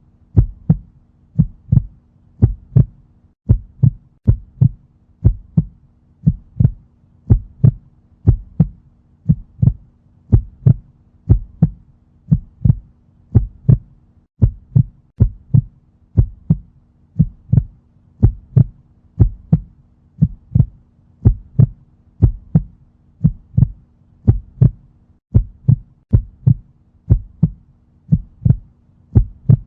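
Heartbeat sound effect: steady lub-dub thumps in pairs, about one beat a second, over a faint low hum.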